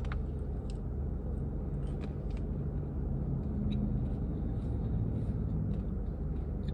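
Steady low rumble of a car, heard from inside the vehicle, with a few faint clicks.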